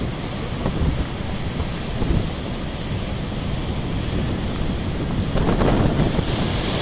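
Heavy storm surf surging and breaking against the shore, with wind buffeting the microphone; the wash swells louder near the end.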